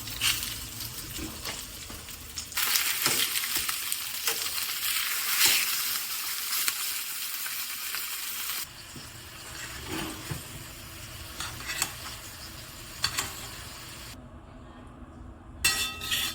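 Food sizzling in a hot frying pan, with scattered sharp clicks. The sizzle grows louder for several seconds from about two and a half seconds in, then settles quieter, and breaks off briefly near the end before a few more clicks.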